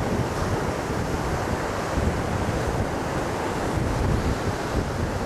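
Gulf of Mexico surf breaking and washing up a sandy beach in a steady wash, with wind buffeting the microphone in low rumbles.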